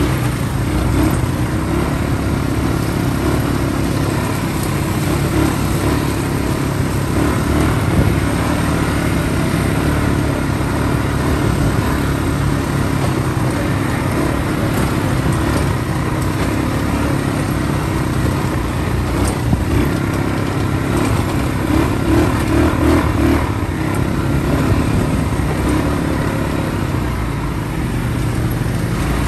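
ATV engine running steadily under way, with little change in loudness throughout.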